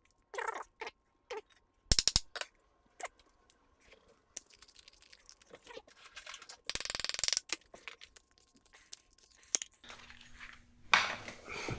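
Scattered clicks, knocks and scrapes of a glass jar and its stuck metal screw lid being gripped, twisted and worked at with a tool. A short rapid rattle comes about seven seconds in.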